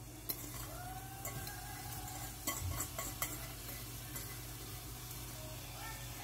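Food frying in a pan while a utensil stirs it, with a few sharp clinks and knocks of the utensil against the pan.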